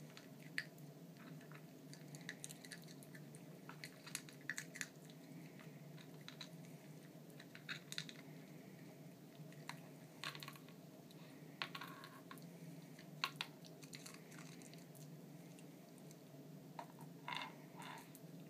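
Papillon dog working a Nina Ottosson Dog Tornado plastic puzzle feeder, nudging the stacked layers and crunching kibble: scattered small clicks and crunches at irregular intervals, with a short quick cluster near the end.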